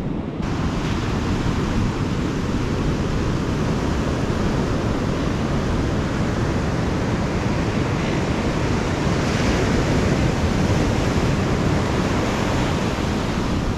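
Ocean surf washing onto a sandy beach: a steady rush of breaking waves that swells a little about two-thirds of the way through.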